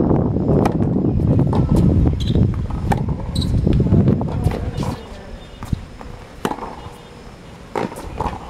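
Tennis ball struck by rackets and bouncing on a hard court during a rally: a string of sharp, irregularly spaced pops, starting with the serve. Wind buffets the microphone through the first half, then dies down about halfway through.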